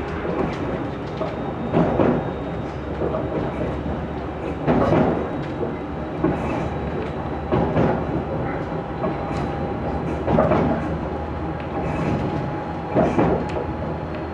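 Aizu Railway 6050 series electric train running at speed, heard from inside the carriage: a steady rumble with the wheels clacking over rail joints in short groups about every three seconds.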